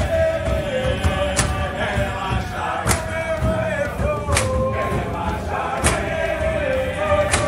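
A group of men singing a chant together, with a sharp clap about every second and a half.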